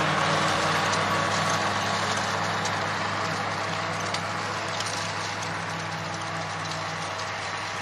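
Scania V8 diesel engine in a converted Steiger Cougar tractor working hard while pulling a cultivator. Its steady drone slowly fades as the tractor moves away.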